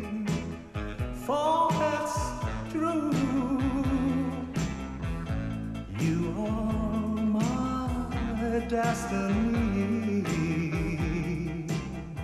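A male singer holding long notes with vibrato in a slow pop ballad, backed by a live band.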